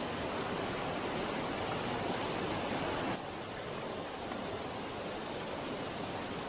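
A small stream's water rushing over riffles, a steady hiss of flowing water that drops a little in level about three seconds in.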